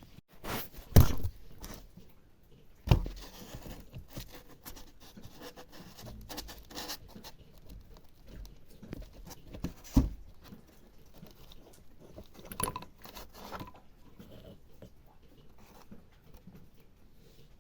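Handling noises of tools and parts during a lawn mower rebuild: sharp knocks about a second in, at about three seconds and at about ten seconds, a run of clicks a little past twelve seconds, and small scrapes and ticks in between, in a small room.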